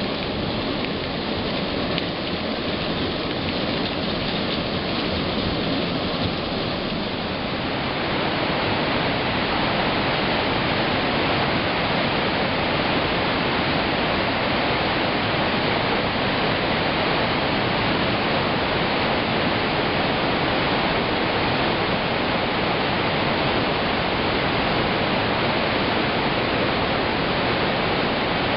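Steady rain for the first seven seconds or so, then a sudden change to the loud, even rush of a mountain torrent foaming through a narrow rock gorge.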